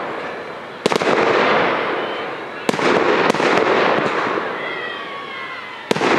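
Aerial fireworks shells bursting overhead: a sharp bang about a second in, a quick cluster of bangs around the middle and another bang near the end, each trailing off in a long rolling echo.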